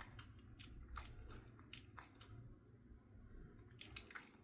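Near silence: a low room hum with scattered faint, irregular clicks, a couple of them a little stronger near the end.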